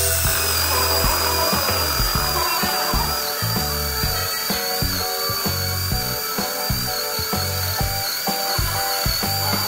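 Cordless drill boring into a hardwood block, its motor whining steadily under load, over background music.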